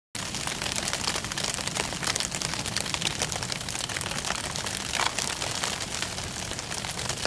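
Sleet and rain pattering hard on a hunting blind, a dense crackle of many small hits, over wind noise.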